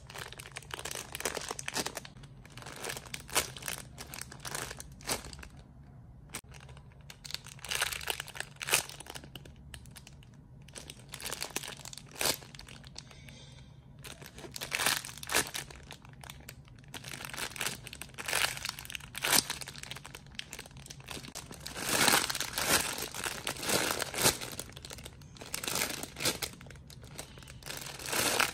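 Plastic packaging crinkling in irregular bursts as squishy toys are handled, loudest for a couple of seconds past the middle, over a faint steady low hum.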